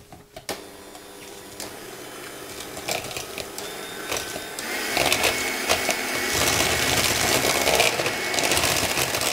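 Electric hand mixer with twin beaters whipping egg yolk and powdered sugar until frothy. The motor starts about half a second in and runs steadily, getting louder about halfway through as a higher whine joins in.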